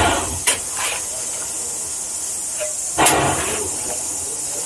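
Steady steam hiss from the Mason Bogie 0-6-4T tank locomotive Calumet and Torch Lake #3 standing still, heard from inside its cab. Short louder rushes of noise break in at the start, twice more within the first second, and again about three seconds in.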